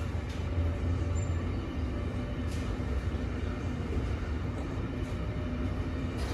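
Intermodal freight train's container and pocket wagons rolling past steadily: a low rumble of wheels on rails, with a few faint clicks.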